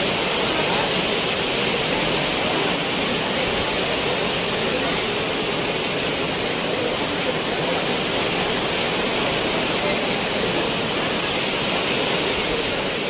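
Heavy downpour: a loud, steady rush of rain.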